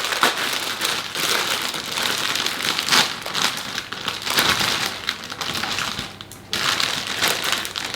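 Plastic packet of pre-cut fresh cauliflower crinkling continuously as it is handled and the florets go into a baking dish, with a short pause about six seconds in.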